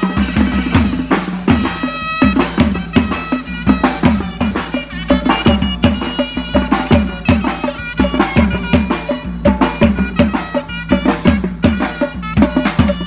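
Thai traditional procession music for an ordination: a reedy wind instrument holds sustained notes over fast, steady drum and percussion strokes.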